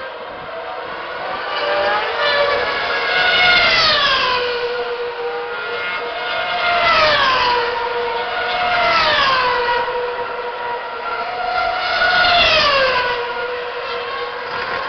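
2010 Formula One cars' 2.4-litre V8 engines running at high revs on track, a steady high engine note throughout with four long drops in pitch as cars come past.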